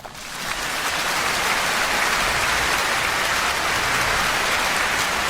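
Applause: many hands clapping in a dense, steady patter that swells in over the first second and holds.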